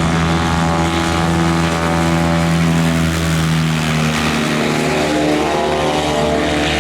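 Light aircraft's piston engine and propeller running loud and steady close by, with a small shift in pitch about four seconds in.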